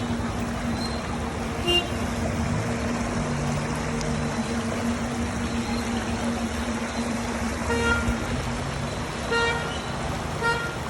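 Vehicle horns tooting in short blasts, once near the start and three times in the last few seconds, over a steady rushing noise and a running engine.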